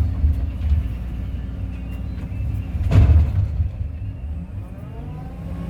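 Kobelco excavator's diesel engine running with a steady low drone. About three seconds in there is one loud crunch. Near the end a faint whine rises and falls.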